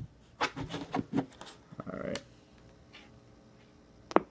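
Handling noise: a quick run of light taps and clicks, a short scuffing rustle about two seconds in, and one sharp click near the end, over a faint steady hum.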